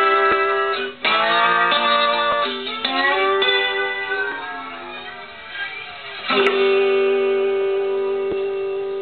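Acoustic guitar: chords struck and left to ring out, with fresh chords about a second in, around three and a half seconds, and at about six and a half seconds, the last one fading slowly.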